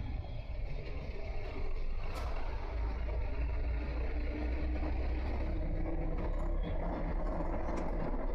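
Motorcycle riding in traffic, its engine and road noise running steadily. A heavy truck's low engine rumble swells from a few seconds in as the bike closes on it and draws alongside.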